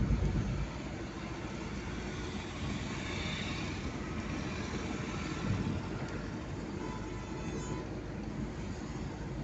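Steady road and engine rumble of a moving car heard from inside its cabin, with a brief louder low thump right at the start.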